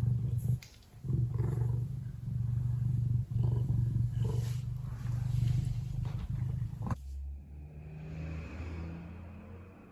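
Ragdoll cat purring loudly close to the microphone, a steady pulsing rumble with a short break about a second in. About seven seconds in the purr cuts off with a click and a quieter low sound follows. The owner takes the purring as a sign the cat is relaxed and content.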